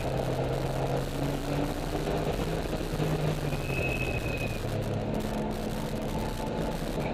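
Porsche 996's flat-six engine running at track speed, its note rising and falling with the throttle through the corners, over steady road and tyre noise, heard from inside the car. A brief high-pitched tone sounds about four seconds in.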